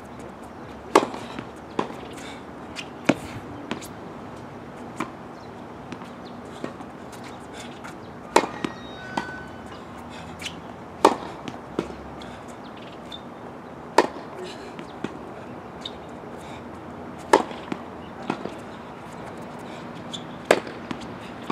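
Tennis racket striking the ball on serve after serve: a sharp pop every few seconds, seven strong hits in all, with fainter knocks in between.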